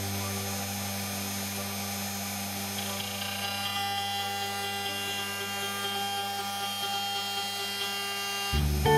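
CNC router spindle running at high speed, its small end mill boring a hole into a hardwood fretboard blank: a steady whine under soft background music. Louder guitar music comes in near the end.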